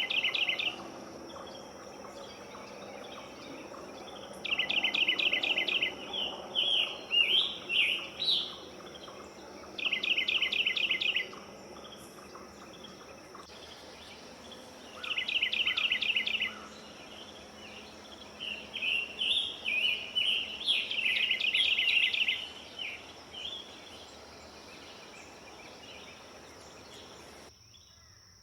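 Songbird singing: several fast trills of rapidly repeated notes, each a second or so long, alternating with runs of varied warbled phrases. A steady high insect-like tone runs underneath and cuts off near the end.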